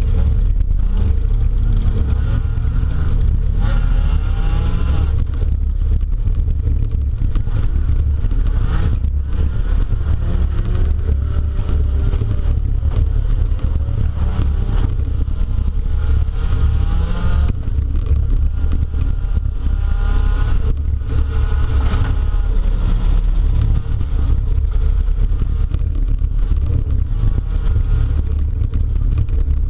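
Derby car engine running hard inside the cabin, its pitch rising and falling as it revs up and down, over a heavy low rumble. Loose parts clatter, with several sharp knocks along the way.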